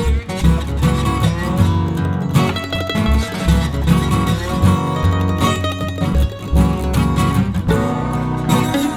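Blues music led by guitar, with a steady run of low bass notes.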